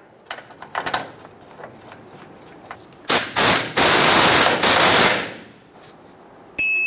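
Light clinks of a bolt being started by hand, then an air ratchet with a 13 mm socket spinning the fuel tank strap bolt in two short bursts and one longer run of about a second and a half. Near the end, a high electronic beep from a torque wrench signals that 30 ft-lb has been reached.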